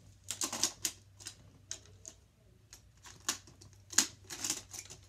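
Plastic Hot Wheels track and toy cars clattering: a string of irregular sharp clicks and knocks, bunched about half a second in and again near the end, the loudest around four seconds.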